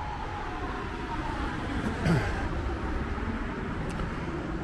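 Road traffic on a city street: a steady rumble of passing cars, with a brief louder swell and a short falling tone about two seconds in.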